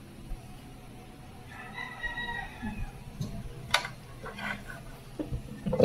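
A rooster crows once, faintly: a held call of about a second and a half, starting about a second and a half in. A sharp clink of a spoon comes near four seconds in, with a few softer knocks after.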